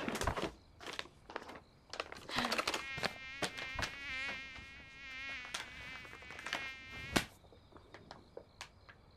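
A mosquito's high whine, wavering in pitch as it circles, for about four seconds in the middle, mixed with sharp slaps of hands clapping at it. The loudest slap comes about seven seconds in.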